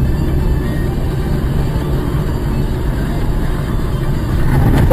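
Road and engine noise heard inside a moving car's cabin: a steady low rumble with tyre and wind hiss. Near the end the noise grows louder.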